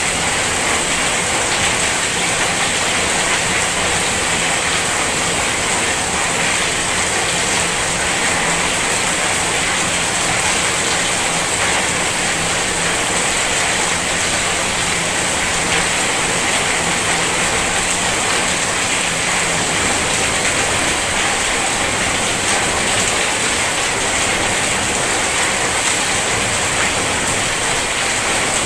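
Heavy rain falling in a steady, dense downpour. A faint low hum sits beneath it and fades out about two-thirds of the way through.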